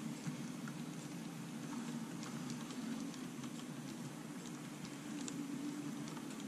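Model train coaches rolling along the track: a steady low rumble with faint, irregular clicks from the wheels.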